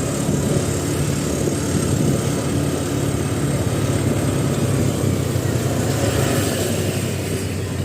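Motor vehicle engine running steadily with a low rumble, amid road noise; no horn sounds.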